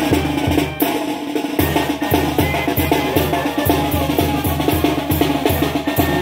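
Live brass band playing an upbeat dance tune over a steady bass-drum beat. The drum drops out for a moment about a second in, then picks up again.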